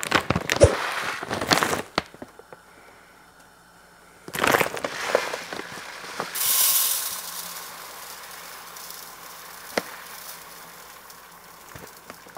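Large plastic bag of dry rice crinkling and rustling as it is handled and tipped, with rice grains poured from it into a bowl. It comes in a few short bursts, loudest in the first two seconds, with light clicks in between.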